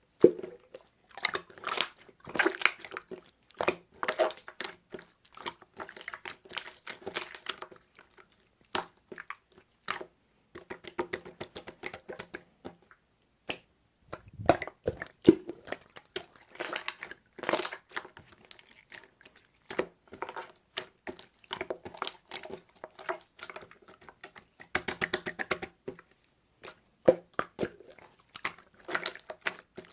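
Slime being squished, pressed and stretched by hand, making dense runs of sticky clicks and small air-bubble pops with short pauses between handfuls.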